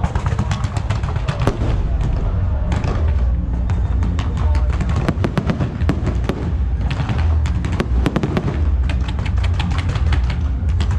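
Fireworks crackling and popping in dense, rapid clusters, over loud music with a heavy steady bass.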